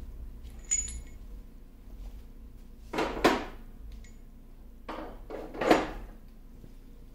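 Metal pieces being handled, giving several separate clinks and knocks: a ringing clink under a second in, two louder knocks about three seconds in, and two more around five to six seconds.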